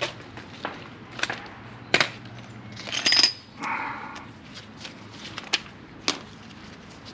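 Scattered metal clicks and knocks of a wrench and socket on the brake caliper bracket bolts as they are torqued down, with a louder ringing metallic clatter about three seconds in.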